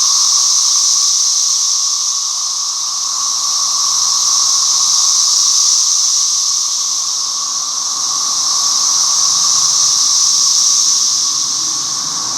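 Dense chorus of cicadas making a big racket: a loud, steady, high-pitched hiss with a lower hum under it, swelling and easing slightly in waves.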